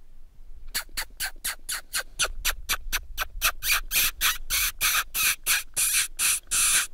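A coyote hunter making rapid lip-smacking squeaks against his hand to call in a coyote. The squeaks come about four a second and grow longer and louder toward the end, then stop abruptly.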